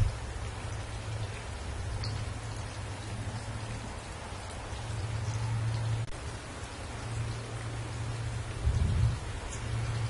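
Steady rain falling, with a low rumble underneath that swells briefly about nine seconds in.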